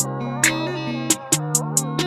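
Background music: a plucked guitar over a steady beat with sharp percussive hits, and a wavering melody line.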